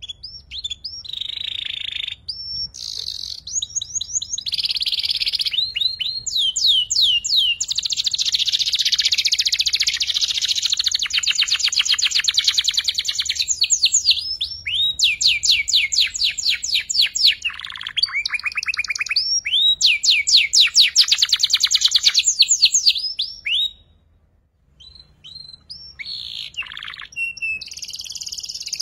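Young domestic canary singing a learning song of fast trills and rolls: long runs of rapidly repeated high notes, broken by a short pause a few seconds before the end.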